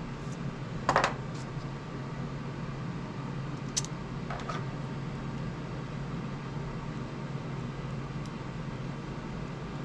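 Steady low background hum with a few scattered light clicks and taps as a servo is handled and fitted against its mounting tray; the sharpest tap comes about a second in.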